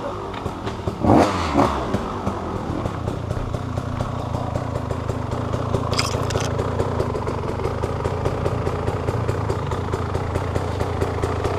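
Off-road motorcycle engine running steadily at low revs, with a louder burst about a second in and a single sharp click about six seconds in.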